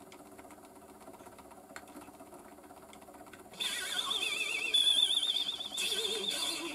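Faint steady hum of the stepper motor turning the belt-driven platter. About three and a half seconds in, a 78 rpm record starts playing: music whose pitch wobbles and warbles throughout. This is the wow and flutter of the stepper-and-belt drive, which is running a bit fast.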